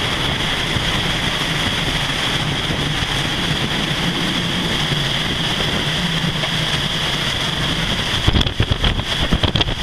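Storm wind and driving rain and spray roaring around a small dive boat's open wheelhouse, with the boat's engine humming steadily underneath. Near the end, gusts buffet the microphone in uneven loud thumps.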